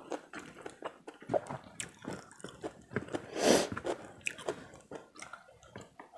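Close-up chewing and biting of karedok, raw vegetables in peanut sauce, with rice: wet, crunchy mouth sounds and small clicks, with one louder noisy burst about halfway through.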